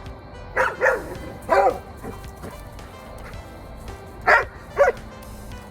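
A dog barking five short times in three groups: two quick barks, a single bark, then after a pause two more.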